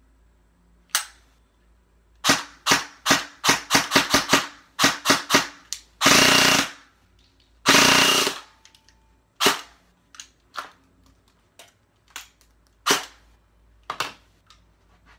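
G&P Stubby M4 airsoft electric gun (AEG) shooting BBs: a quick string of single semi-auto shots, then two short full-auto bursts, then scattered single shots. It runs a high-speed motor on an 11.1 V LiPo through a MOSFET, firing about 25 rounds a second on full auto.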